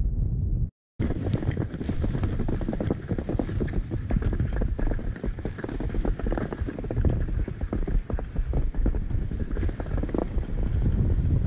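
Skis sliding and scraping over snow at a steady glide, with wind rushing over the microphone. The sound drops out completely for a moment just under a second in, at a cut.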